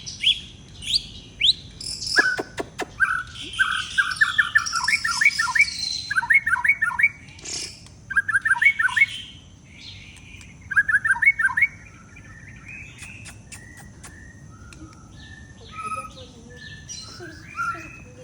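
White-rumped shama singing: varied clear whistles mixed with quick runs of short falling notes, busy through the first two-thirds and thinning to scattered softer notes near the end.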